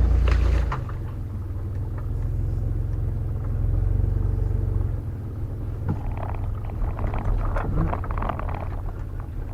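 A vehicle's engine running low and steady as it creeps over rough ground, with a heavier low bump in the first second. From about six seconds in, crackling and scraping join in, like brush and twigs under and against the vehicle.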